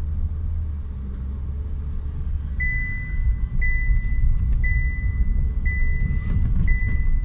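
Inside a Chevrolet Sonic, the engine runs as a low steady rumble. A little under three seconds in, a dashboard warning chime starts, repeating a single high tone about once a second.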